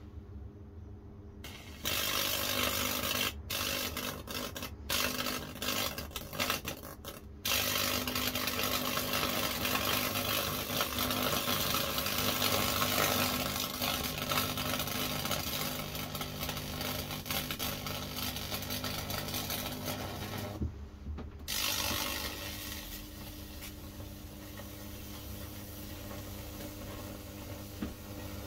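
High-voltage fractal (Lichtenberg) burning arc hissing and crackling with a steady electrical hum as it burns into soaked Sapele wood, switched on and off by a foot pedal. It starts about two seconds in, cuts out briefly three times early on, and pauses for about a second about two-thirds of the way through.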